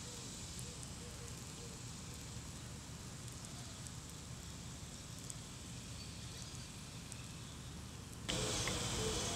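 Quiet outdoor ambience: a steady low rumble and hiss with a few faint short calls. Near the end it gives way to louder crackling and repeated chirping.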